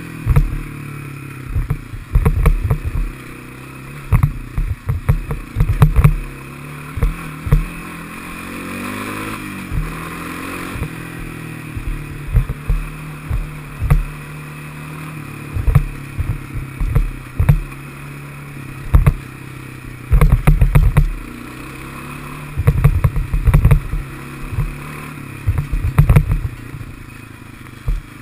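Honda FourTrax ATV's single-cylinder four-stroke engine running under way at low pitch, briefly climbing in pitch as it speeds up about eight seconds in and dropping back a few seconds later. Frequent loud knocks and clatter run through it as the quad jolts over bumps and ruts in the dirt trail.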